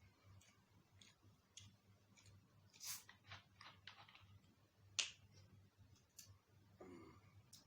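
Faint eating sounds close to the microphone: chewing and lip smacks as short clicks, a cluster of them around the middle and one sharper click about five seconds in, then a brief murmur near the end.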